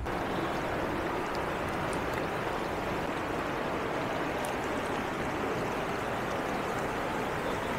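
River water rushing in a steady, even wash.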